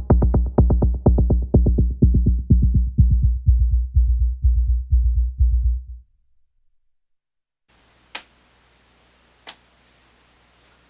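Novation Circuit groovebox playing a pulsing electronic beat with heavy bass, growing steadily duller as the high end fades away, then cutting off suddenly about six seconds in. After a short silence come two faint clicks.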